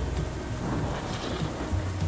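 Rain falling on a car windshield as a steady hiss that swells in the middle, over soft background music.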